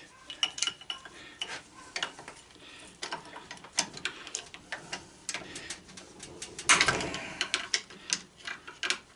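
A thin metal tool clicking and scraping against a propane regulator's metal parts while prying out a pin, in a run of irregular small clinks. A louder scrape comes about seven seconds in.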